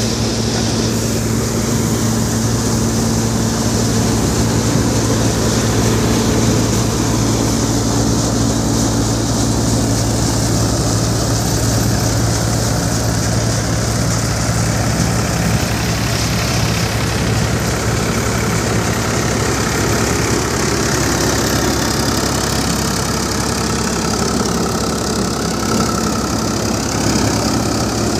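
A tractor-driven groundnut thresher running steadily: a constant low engine hum with an even machine clatter over it, holding the same pace throughout.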